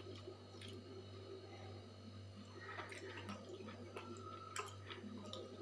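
Quiet eating sounds: scattered small clicks, smacks and crackles of chewing and handling food, a brief cluster of them about three seconds in, over a steady low electrical hum.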